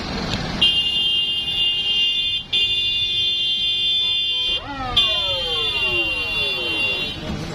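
High-pitched electronic vehicle horn or siren tone blaring in long steady blasts of about two seconds each with brief breaks. About halfway through, a second tone sweeps down in pitch over about two seconds.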